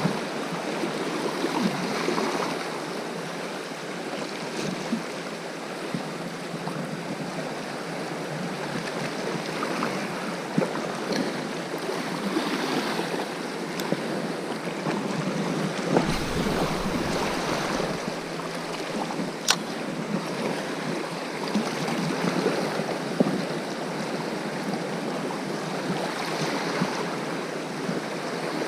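Sea waves washing on the shore in a steady, swelling rush, with wind gusting on the microphone at times. There are a few sharp clicks, one of them louder, a little past halfway.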